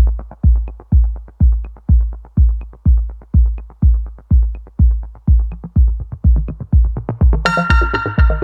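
Electronic background music: a heavy bass kick drum beating about twice a second, with a bright synth layer coming in near the end.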